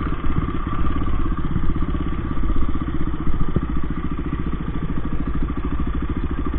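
Dirt bike engine running steadily at low revs on a rough dirt trail, with an even pulse and a single knock about halfway through.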